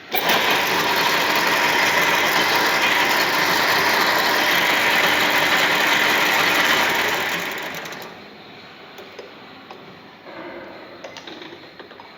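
Metal lathe running with the tool cutting the workpiece during taper turning: a loud, steady machining noise that starts abruptly and dies away about seven to eight seconds in, followed by a few light knocks.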